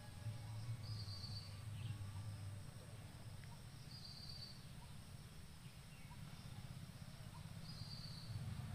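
Faint outdoor ambience in undergrowth: a low steady rumble, with a short high-pitched call repeating three times, a few seconds apart.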